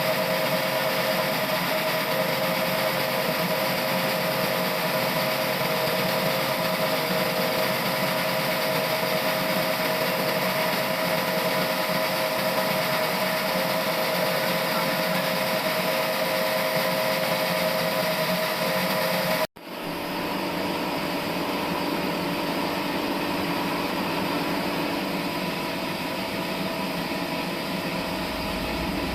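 Sawmill machine running steadily with a constant whine. About two-thirds of the way through it cuts out abruptly for an instant and resumes at a slightly different pitch.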